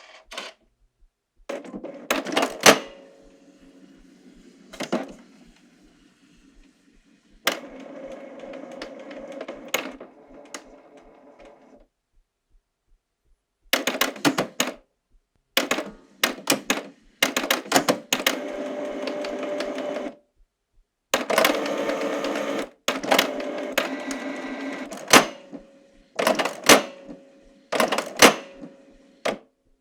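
Canon Pixma MP495 inkjet printer working: its motors whir in stretches of several seconds, broken by sharp clicks and clacks and by short pauses.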